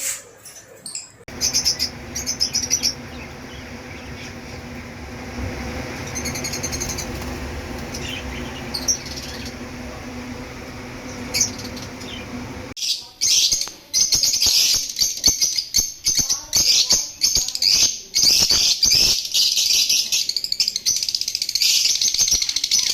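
Captive parrots chirping and chattering. The first half has faint chirps over a steady background hum; from about halfway through, the chirping turns loud, rapid and continuous.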